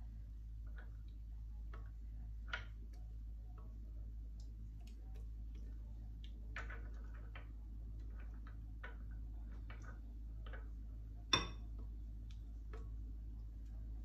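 Silicone spatula scraping and tapping inside a blender jar as thick green chile salsa is scraped out into a glass bowl: scattered soft clicks and knocks, with one sharper knock about eleven seconds in. A steady low hum runs underneath.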